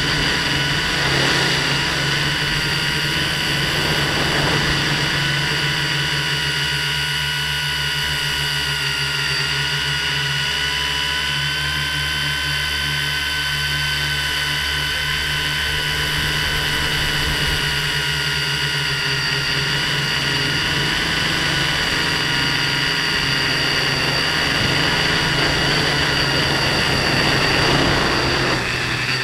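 An FPV drone's electric motors and propellers whining steadily, picked up by its onboard camera. The pitch wavers slightly with throttle, over a low rumble.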